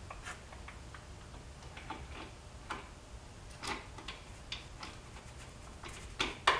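Small metal tools and engine parts being handled on a workbench: irregular light clicks and clinks, with two sharper knocks near the end.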